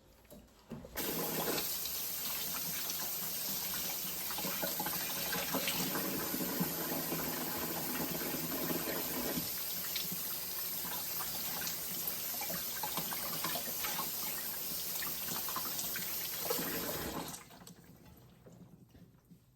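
Water running steadily from a tap into a sink, turned on about a second in and shut off near the end.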